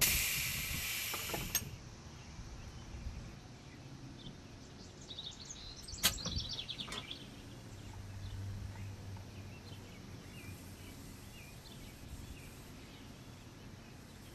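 Compressed air hissing out of a US&S electro-pneumatic dwarf railroad signal for about a second and a half, ending with a click as the signal's mechanism moves. Then quiet outdoor background with a few bird chirps and a single sharp click about six seconds in.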